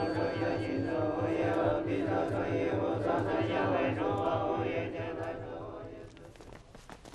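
Buddhist monks chanting in unison: many male voices in a slow liturgical chant over a steady low pulse, fading out about five to six seconds in.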